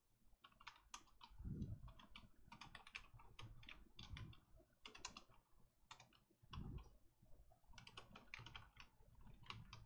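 Faint typing on a computer keyboard: quick, irregular runs of key clicks as a line of code is entered, with a soft low thump twice.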